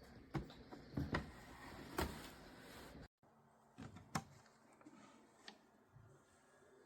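A few light knocks and clicks from a small plastic mini fridge being handled and turned around. The sound cuts out completely for a moment just after three seconds in, and fainter clicks follow.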